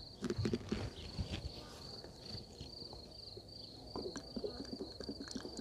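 Cricket chirping, a high pulsing trill. A few soft knocks in the first second, then from about four seconds in sugar syrup gurgles as it is poured from a kettle through a plastic funnel into a hive feeder.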